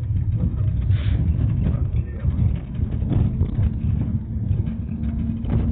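Marshrutka minibus driving, heard from inside the cabin: a continuous low engine and road rumble with a couple of short knocks. A steady low hum joins about halfway through.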